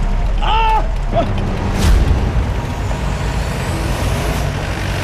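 A motor vehicle's engine running steadily, with a short pitched tone that rises and falls about half a second in and a whoosh about two seconds in.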